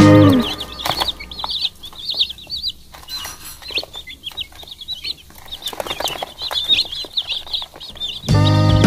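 A brood of broiler chicks peeping, many quick high chirps overlapping without pause. Background music stops just after the start and comes back in near the end.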